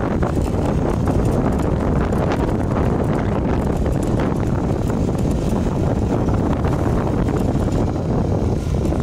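Wind buffeting the microphone of a phone held by a rider on a moving motorcycle: a steady, loud low rush with no pauses.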